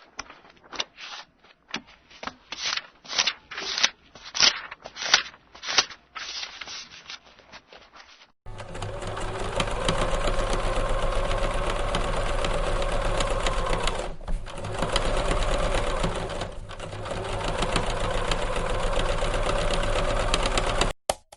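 A quick run of short paper flips, pages being turned, then a sewing machine running steadily for about twelve seconds, pausing briefly twice before stopping.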